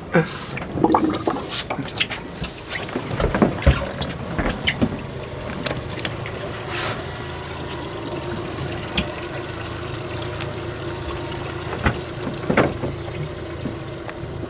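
Water splashing and trickling in a boat's live-well tank, with scattered knocks and taps in the first half as the fish is handled, over a steady low hum.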